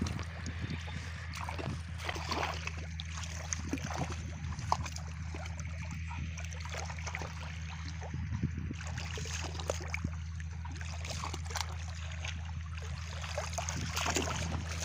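Shallow muddy water splashing and trickling lightly, with small scattered knocks and rustles, over a steady low hum.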